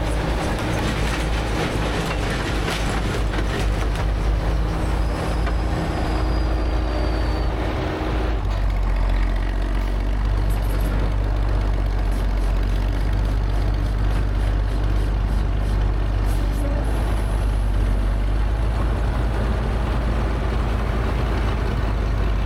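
A heavy machine's engine running steadily; its note changes about eight seconds in.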